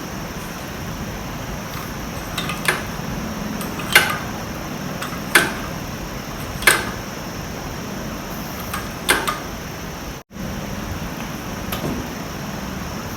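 Sharp metallic clicks and knocks, one or two at a time and a second or more apart, over a steady background hum: hand tools at work on a motorcycle.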